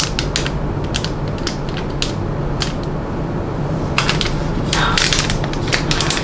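Paper pull-tab seal and plastic film being torn off an iPhone 12 Pro Max box and crinkled by hand: a string of sharp crackles and clicks, thickening into a dense crinkle about four seconds in.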